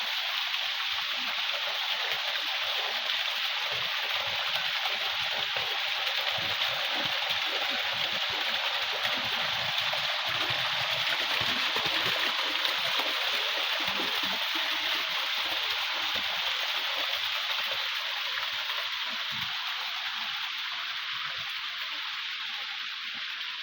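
Waterfall and river water rushing steadily, an even loud hiss of falling and flowing water.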